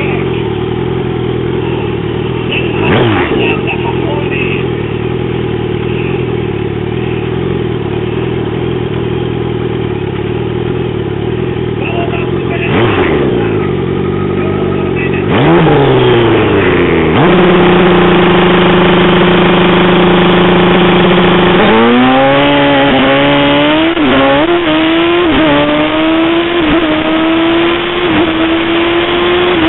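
Super Street drag-racing motorcycle engine idling with a couple of quick revs, then held at high revs for about four seconds. The bike then launches and accelerates hard, its pitch climbing with a quick drop at each of about three gear changes.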